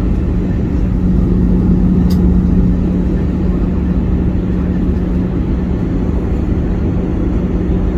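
Steady engine drone with a constant low hum and rumble, as heard inside an aircraft cabin.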